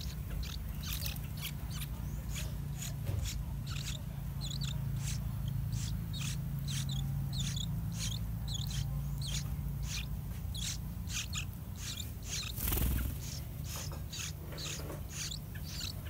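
Yellow-vented bulbul chicks begging at the nest: short high-pitched calls repeated about twice a second, over a steady low hum. There is a brief louder thump near the end.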